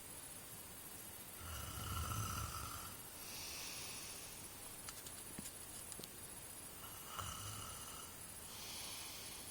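A man snoring in deep sleep. There are two breaths, each a low snore followed by a breathy exhale, and the first snore is the louder.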